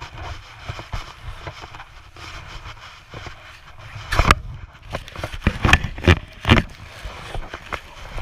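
Small plastic snow shovel digging and scraping into snow, picked up close by a body-worn camera, under a low rumble. About four seconds in come several sharp, loud knocks and scrapes as the blade strikes the snow.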